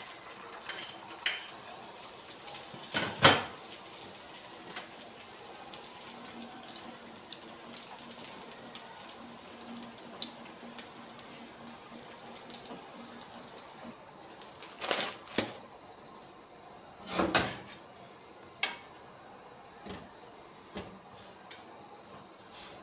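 Kitchen handling at a stovetop griddle (tawa): scattered clinks of utensils and cookware, with a few louder knocks spread through, over a faint steady high hiss.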